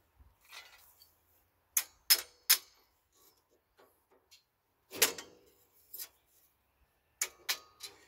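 Metal tools clicking and clanking against a brake caliper while a welder's clamp is worked on it: about eight sharp knocks, the loudest about five seconds in with a brief ring.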